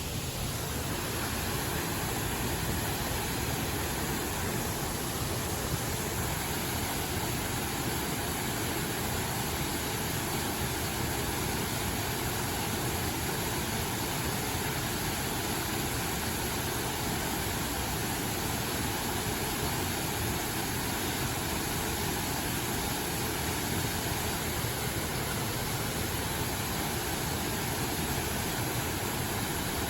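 Steady rushing of a mountain stream, an even wash of water noise with no breaks.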